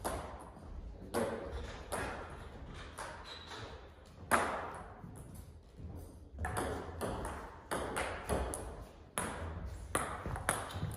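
Table tennis ball clicking off paddles and table in an echoing hall: scattered single taps at first, then a rally from about six seconds in at roughly three hits a second.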